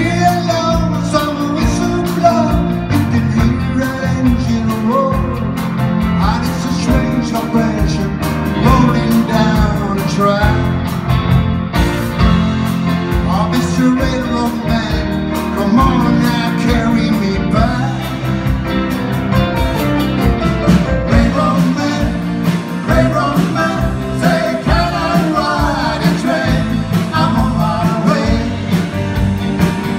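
Live rock-and-roll band playing: electric guitars, electric bass, drums and keyboard together with a steady beat.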